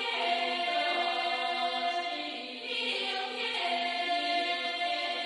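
Background music of a choir chanting in long held notes over a steady low sustained note, the upper voices moving to new notes about halfway through.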